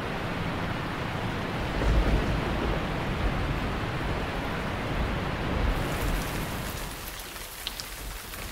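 A steady, rain-like rushing noise that thins out over the last couple of seconds.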